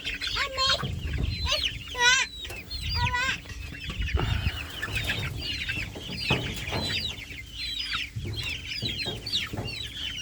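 A flock of young chicks, four to six weeks old, peeping: many short, high chirps that fall in pitch, overlapping, with a few louder warbling calls in the first few seconds.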